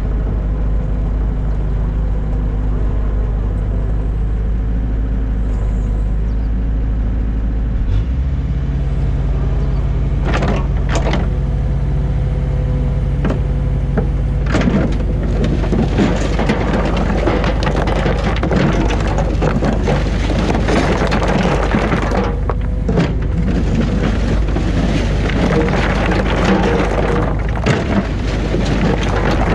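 Diesel engine of a mini excavator running steadily, its engine speed stepping up about 8 seconds in. From about halfway on comes a dense clatter of knocks and scraping, typical of stones and rubble being worked in the bucket.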